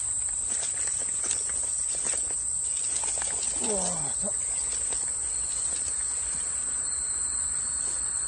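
Steady, high-pitched chorus of crickets. A few faint clicks fall in the first few seconds, and a short falling voice exclamation comes about three and a half seconds in.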